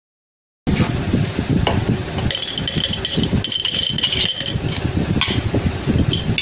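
A glass jar with loose contents shaken by hand, rattling fast and continuously from under a second in, with a bright ringing in the middle and again near the end.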